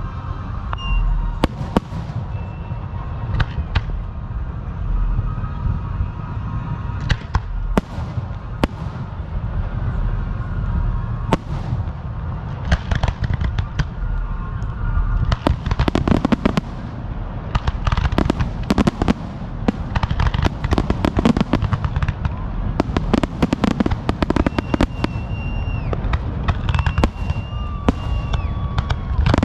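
Fireworks going off: a run of sharp bangs and crackles that grows denser about halfway through. Near the end, several whistling shells add held whistles that drop off in pitch.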